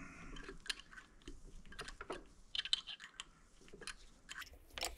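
Faint, irregular metal clicks and ticks from a Time-Sert thread-repair installer being turned by hand, backed out of the freshly expanded M10x1.25 insert in the engine case's drain-plug hole.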